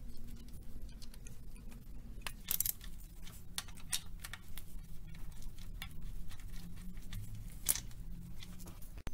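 Scattered light metallic clicks and clinks of hand tools and timing-chain parts being handled on an engine, irregular rather than rhythmic.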